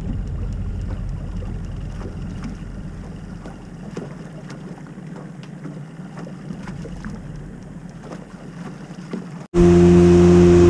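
Boat on the water: a low rumble with scattered small clicks and knocks that slowly fades. About nine and a half seconds in it cuts suddenly to a much louder, steady engine drone.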